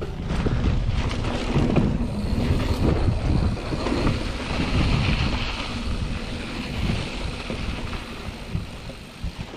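Wind buffeting the microphone while a mountain bike is ridden along a dirt trail, with knocks and rattles from the bike over rough ground and a hiss of tyres and motion through the middle seconds.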